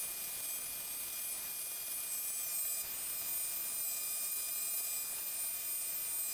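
Mini lathe running with a steady high motor whine while sandpaper is held against the spinning mild-steel taper, adding a steady hiss. The whine dips slightly in pitch about two and a half seconds in.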